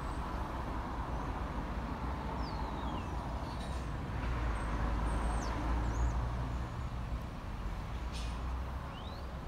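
Class 172 Turbostar diesel multiple unit standing with its engines idling: a low, steady rumble that grows a little louder in the middle. A few faint, high chirps sound over it.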